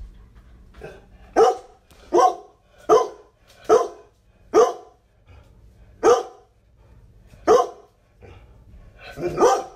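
A black dog barking, about eight single barks. The first five come a little under a second apart, then the gaps widen, with a last louder bark near the end.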